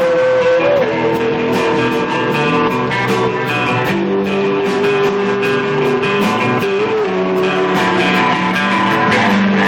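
Live rock band playing a song with guitar, with long held lead notes that step down in pitch about a second in and again near the end, over steady lower parts and frequent short high ticks.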